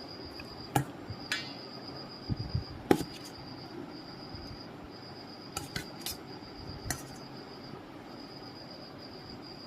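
Scattered sharp clinks and knocks of dishes and utensils, with a few duller thuds about two and a half seconds in. A faint high-pitched tone runs underneath, coming and going.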